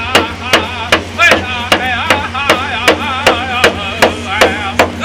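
Hand drum beaten in a steady beat, about two and a half strokes a second, with voices singing a wavering song over it.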